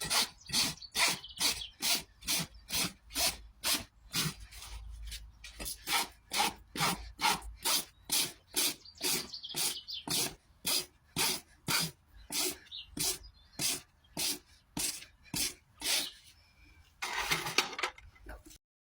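Farrier's rasp filing a horse's hoof in quick, regular strokes, about two to three a second, ending in a longer scraping pass before stopping abruptly.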